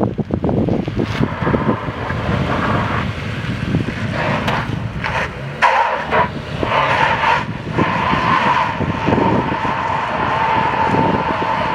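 Subaru Forester's flat-four engine working under load while its tyres scrub and squeal against the pavement, on a diagonal test with one wheel off the ground and losing grip. A steady squeal sets in about halfway through and holds.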